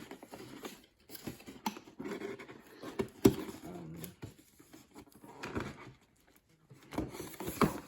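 Cardboard box and packaging being handled: irregular rustling, taps and clicks, with two short pauses.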